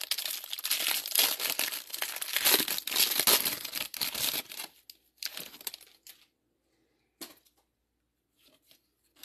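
Clear plastic wrapper of a hanger pack of baseball cards crinkling and tearing as it is peeled off the stack. The crinkling stops about halfway through, followed by a few brief rustles and a single soft click.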